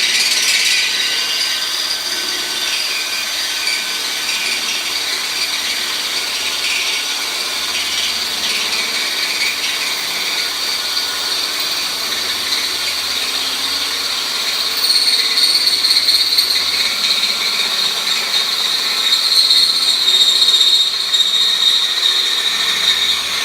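Power drill boring a hole through metal with a worn bit, running steadily with a high squeal that grows louder a little past halfway.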